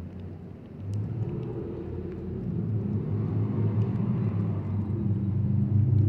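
A motor vehicle's engine running close by, a steady low hum that gets louder about a second in and keeps building.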